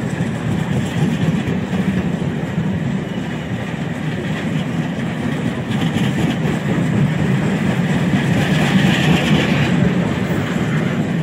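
Freight train of bulk powder tank wagons rolling steadily past: a continuous rumble and clatter of steel wheels on the rails.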